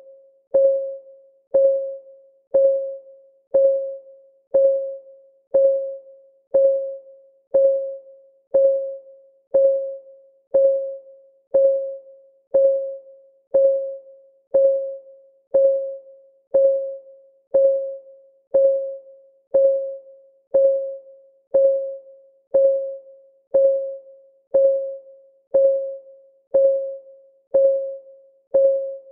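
Countdown timer's clock-ticking sound effect: a short, pitched tick once a second, each dying away quickly, keeping an even pace.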